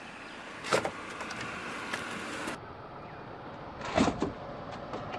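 A car moving slowly, with two sharp cracking crunches, one about a second in and another about four seconds in, as its tyres crush objects.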